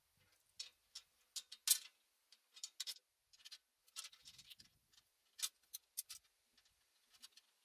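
Scattered light clicks and taps as hands handle the steel rotor housing and hopper of a petrol garden shredder. The engine is silent, and there is no steady hum.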